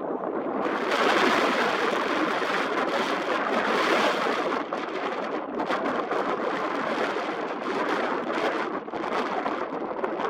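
Strong, gusty wind rushing past the microphone: a loud, steady rushing noise that swells about a second in and then rises and falls unevenly with the gusts.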